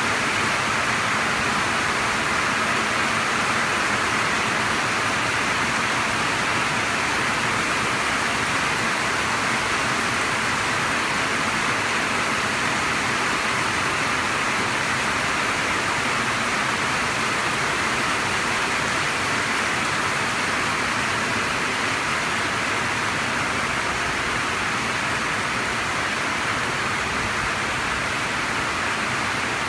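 Heavy spring downpour heard from under a metal carport: rain pelting the carport roof and the ground around it in a steady, even hiss that does not let up.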